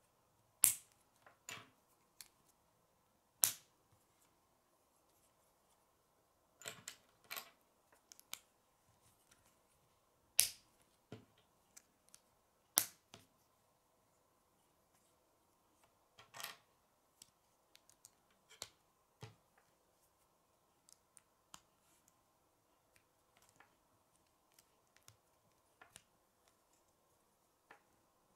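Hard plastic K'nex pieces clicking and snapping together during assembly: sharp, irregular snaps a few seconds apart with lighter clicks and rattles between, over a faint steady hum.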